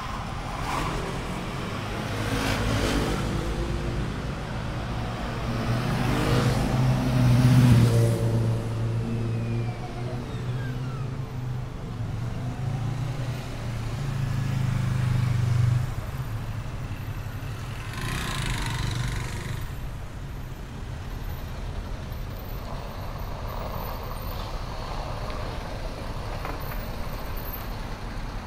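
Road traffic passing close by, including motor scooters and a heavy engine whose low drone builds to its loudest about a quarter of the way in and stops abruptly about halfway through. Softer street noise follows, with one more vehicle passing.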